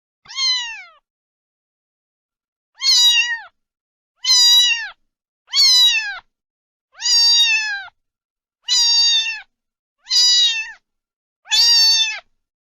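Domestic cat meowing over and over: eight meows, about one every second and a half, each a high call that drops in pitch at its end.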